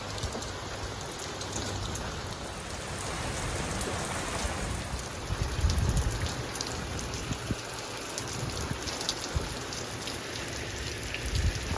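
Steady rain falling, with many individual drops ticking close by. A low rumble swells briefly about six seconds in.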